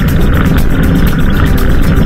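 Loud background music with a steady, fast beat.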